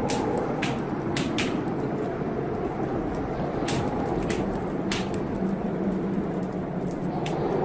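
Wood fire crackling in a fireplace: sharp, irregular pops, several a second at times, over a steady rush of storm wind and rain.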